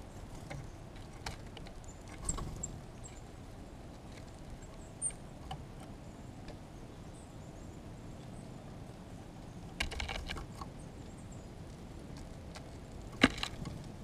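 Downy woodpecker pecking at seed on a tray feeder: scattered taps and clicks, with a short cluster about two seconds in, another about ten seconds in, and the loudest sharp knock near the end.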